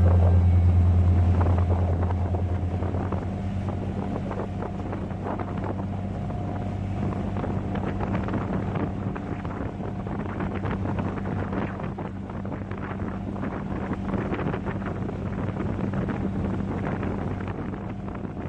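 A motorboat's engine running with a steady low hum, loudest in the first couple of seconds and then settling to a constant level. Wind buffets the microphone throughout.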